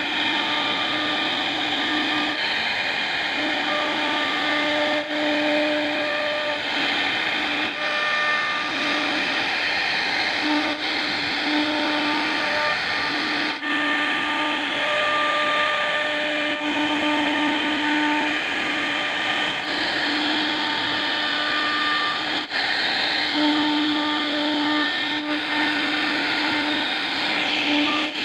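CNC router carving wood: steady whining and cutting noise from the spindle, with a pitched hum that keeps starting and stopping every second or two.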